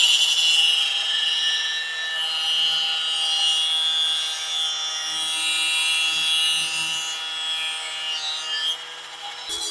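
Battery-powered angle grinder with an abrasive cutoff wheel cutting through a Flexi-Rooter flexible drain-cleaning shaft held in a vise: a steady whine with the grinding rasp of the wheel biting into the metal shaft.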